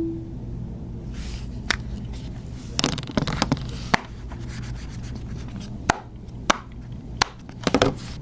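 Irregular sharp clicks and taps, a quick cluster of them about three seconds in and another near the end, over a low steady hum.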